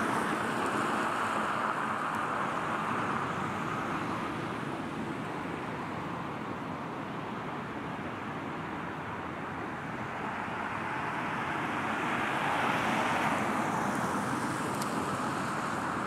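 Steady road traffic noise from cars on a nearby road, swelling for a few seconds late on as a vehicle passes.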